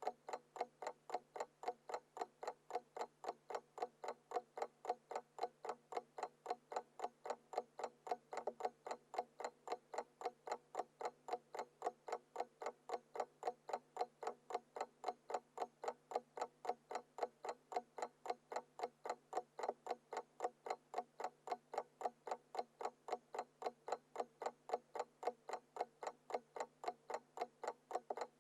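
Classic analog alarm clock ticking: a fast, even run of sharp ticks with no ringing.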